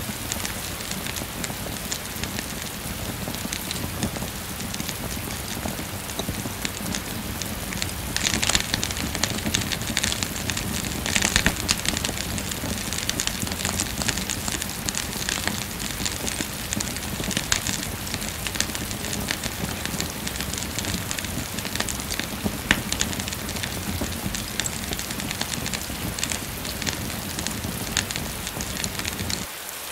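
Steady rain falling, mixed with the crackle and small pops of a wood fire burning in a fireplace. The rain swells louder about 8 and 11 seconds in, and the whole sound dips briefly just before the end.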